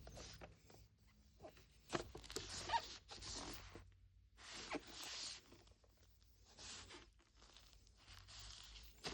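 Small toy packaging handled and unwrapped by hand: a series of short rustling and crinkling bursts with a few sharp clicks.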